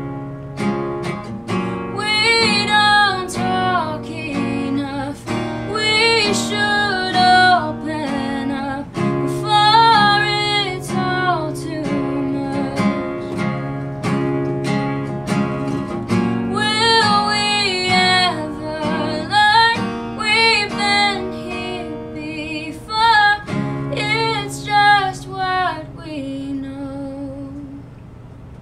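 Woman singing with her own strummed acoustic guitar. The guitar plays alone at first and the voice comes in about two seconds in. Near the end the singing stops and the guitar carries on more softly.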